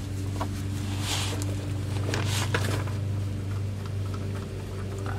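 Hand work on a metal oil cooler line fitting at the engine block: a few brief rustling swishes and small metal clicks as it is positioned, over a steady low hum.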